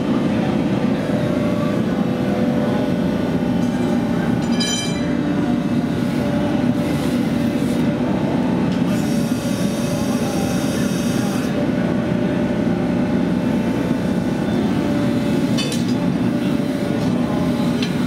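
Hydraulic forging press running with a loud, steady drone while it squeezes a hot steel billet over round fullering bars. A brief high squeal comes about four and a half seconds in and again near sixteen seconds, and a hiss runs from about nine to eleven and a half seconds.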